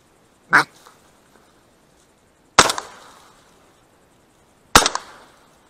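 Two shotgun shots about two seconds apart, each a sharp crack with a fading tail. Just before them, about half a second in, there is a brief loud sound.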